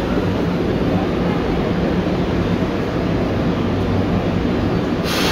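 Tokyu 8500 series electric train running, heard from inside the car: a steady rumble of wheels and running gear with a low hum. About five seconds in, a sudden high hiss rises over it.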